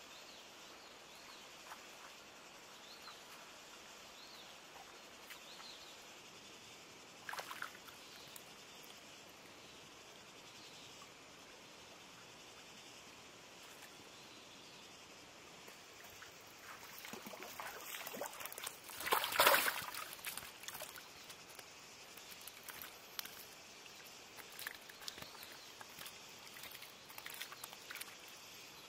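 Shallow muddy water splashing and sloshing as fish are grabbed by hand, loudest about two-thirds of the way through, with a quiet outdoor background and scattered small splashes and clicks.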